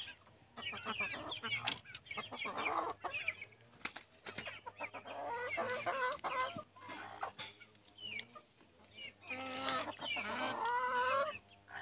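Chickens clucking: three runs of wavering calls with short pauses between them.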